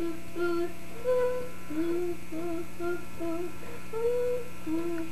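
A young child humming a tune to himself: a run of short, steady notes in a high voice.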